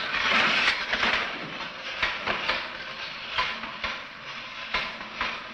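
Mechanical fright toy clattering with a hiss: an irregular run of clicks and rattles, loudest in the first second or so. It is the noise-making apparatus built to frighten a baby monkey.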